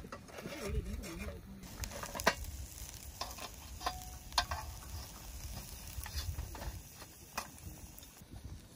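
Camp cooking: scattered clicks and knocks of utensils and cookware being handled over a light sizzle, with one sharp click about two seconds in.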